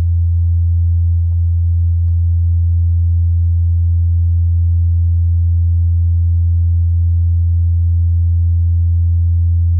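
Steady, loud, low electrical hum on the recording: one deep tone with fainter overtones above it, unchanging throughout.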